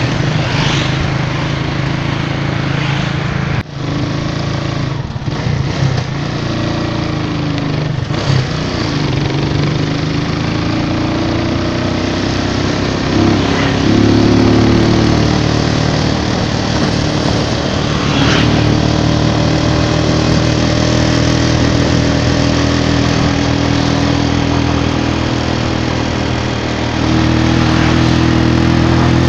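Small motorcycle engine running while riding along the road, with wind rushing over the microphone; the engine note rises and falls a few times as the throttle changes.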